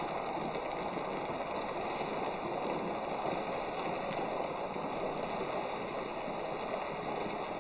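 Chicken pakodi pieces deep-frying in hot oil in an iron kadai: a steady sizzle, with a few small pops.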